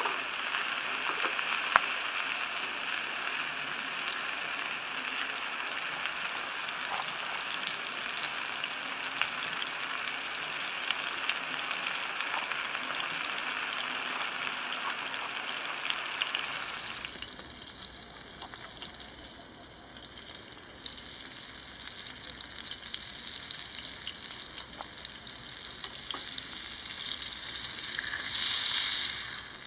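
Food sizzling as it fries in a pan, a steady hiss. About halfway through it abruptly drops to a quieter sizzle, which swells briefly louder near the end.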